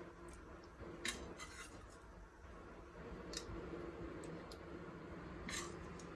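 A metal serving spoon clinking lightly against a glass serving dish a few times as fish curry pieces are spooned in and arranged.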